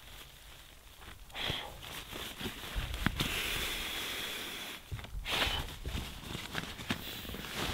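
Crinkly rustling of an inflatable sleeping pad and its nylon pump sack as air is pressed into the pad, coming in several swells with a few sharp crackles and clicks.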